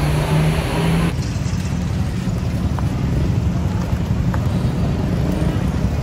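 Street traffic: a steady low rumble of motorcycle and tricycle engines and other vehicles, with a humming engine note that cuts off abruptly about a second in.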